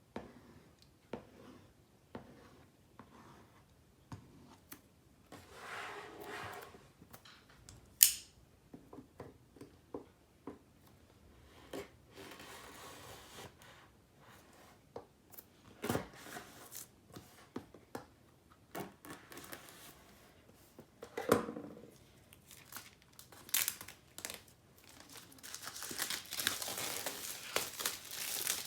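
Packaging of a keyboard box being handled and opened: scattered clicks and taps, a sharp snap about eight seconds in, stretches of tearing and rustling, and steady crinkling of wrapping near the end.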